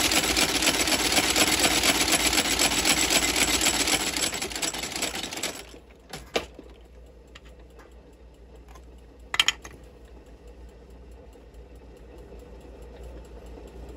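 Outsole stitching machine running fast, driving a rapid even run of lockstitches through a shoe's new leather sole and welt, then stopping abruptly about five and a half seconds in. After that a faint low hum remains, with two short knocks as the shoe is handled.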